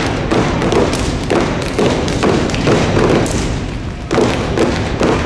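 Step team stepping on a stage: loud, rhythmic stomps of many feet together with claps, a few hits per second, with reverberation in the hall between them.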